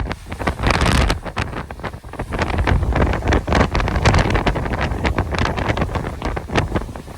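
Strong, gusty Santa Ana wind buffeting the microphone: a heavy rumble with rapid crackling pops that rises and falls with the gusts, easing about two seconds in and building again after.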